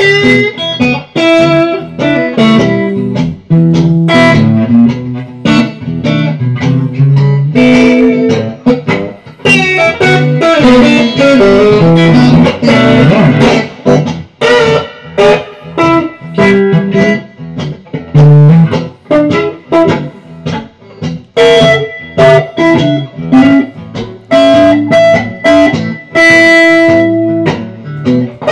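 Blues played on a Telecaster-style electric guitar through a Hughes & Kettner StompMan amp pedal into a Marshall cab with a 10-inch speaker: a mix of single-note lines and chords, with a quick flurry of notes about halfway through.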